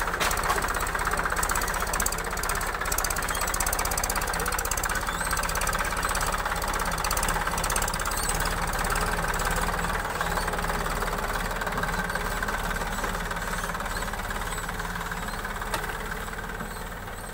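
Massey Ferguson 245 DI tractor's diesel engine running steadily under load while pulling a disc plough through the soil. It grows a little fainter near the end as the tractor moves away.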